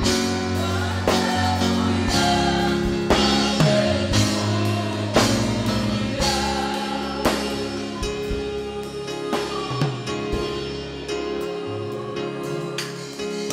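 Congregation singing a gospel worship song, repeating "Haleluia", over a band with drum kit. The music grows a little softer toward the end.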